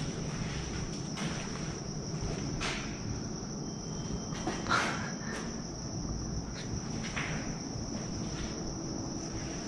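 Crickets trilling steadily in a continuous high-pitched chirr, with a few scattered footsteps and scuffs.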